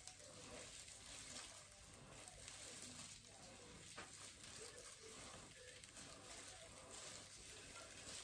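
Near silence, with faint, irregular wet rubbing from gloved hands working semi-permanent hair dye through wet hair.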